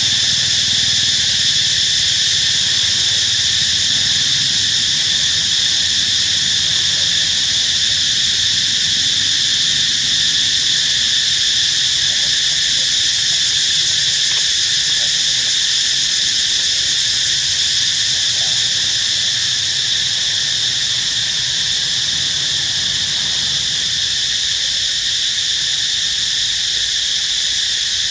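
Loud, steady, high-pitched insect chorus, unbroken throughout, with a faint low rumble beneath.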